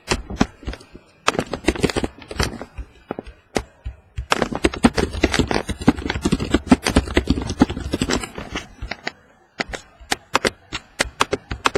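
Trading cards and plastic card holders being handled on a table: a run of quick clicks, taps and rustles, densest in a stretch in the middle.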